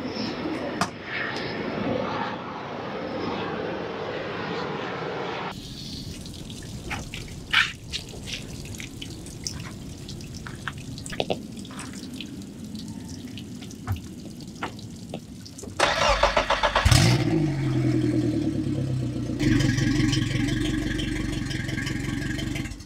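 Scattered knocks and thumps as someone climbs aboard the boat, then the Suzuki DF175 four-stroke outboard cranks for under a second, catches with a quick rise in revs and settles into a steady idle. A hiss joins in about three seconds after it starts.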